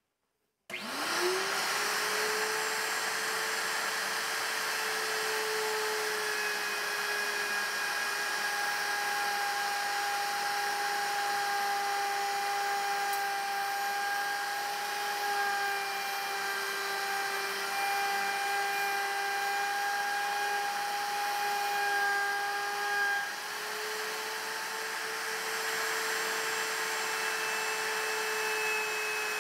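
Table-mounted router switched on about a second in, spinning up quickly to a steady high whine, then running while a round-over bit cuts a rounded edge on hand-fed white oak. Its pitch rises a little about two-thirds of the way through.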